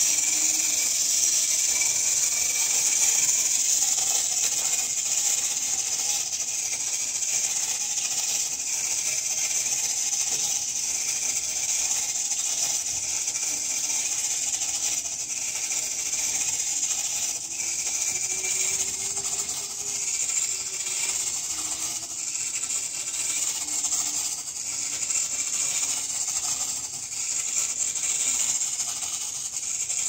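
1950s Rühl tin clockwork flying bird toy running, its spring-driven gear train giving a steady, high-pitched whirr as the bird circles on its arm.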